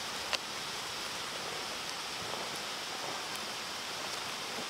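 Steady rushing noise with a single sharp click shortly after the start.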